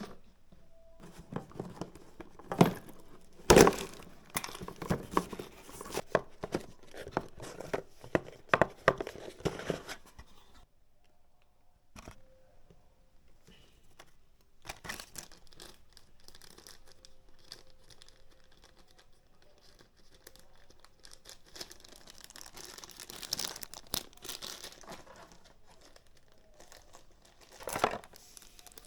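Product packaging being torn open and handled: tearing and crinkling wrap with many small clicks and knocks, busiest in the first ten seconds, then sparser rustling, another spell of crinkling later and one loud rustle near the end.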